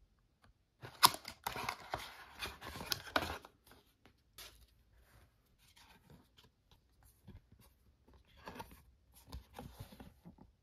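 A cardboard Happy Meal box pulled open by hand: about a second in, a couple of seconds of tearing and crackling cardboard with sharp snaps. Small clicks of handled cardboard follow, then a second, quieter stretch of crackling and creasing near the end as the folded cardboard sheet inside is opened out.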